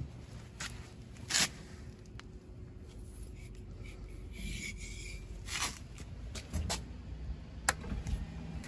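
Hand rubbing and handling noises on the motorcycle and the phone held close to it, with scattered light taps and clicks and one sharp click near the end.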